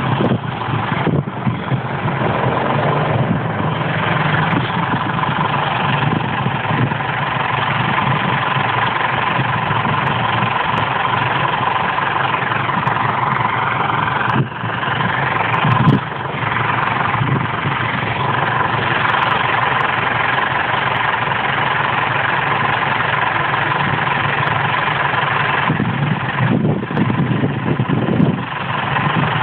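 Diesel farm tractor engines running steadily, with a steady high tone over the engine noise. The sound breaks off sharply for a moment about halfway through.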